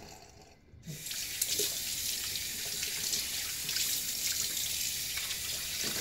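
Bathroom sink tap turned on about a second in, water running steadily into the basin.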